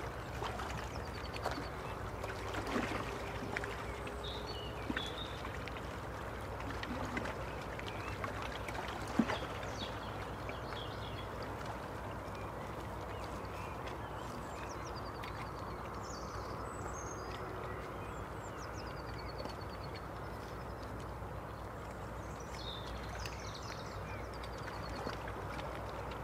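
Outdoor waterside ambience: a steady low rumble, with small birds chirping and giving short falling trills at intervals, and a few brief calls and clicks in the first ten seconds.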